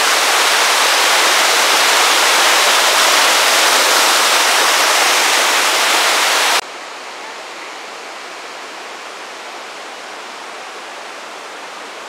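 Waterfall cascading down tiered rock, a loud steady rush of water. About two-thirds of the way through it cuts off abruptly to a much quieter, steady rush.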